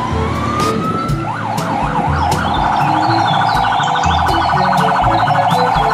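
Fire truck siren: a wail rising in pitch over the first second, then a quick yelp sweeping up and down, then a rapid warble from about halfway through.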